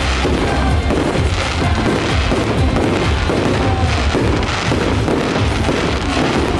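Loud show music with fireworks going off in quick succession over it: a steady run of booms from aerial shells bursting.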